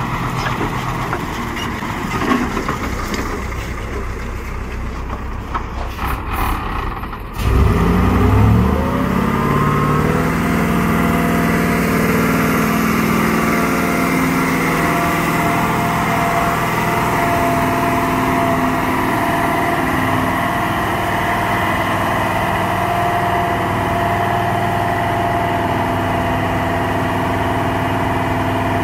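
Diesel engine of a log-laden Iveco truck working hard as it climbs under load. About seven seconds in, the sound changes abruptly and the engine revs up, then holds a steady, heavy pull.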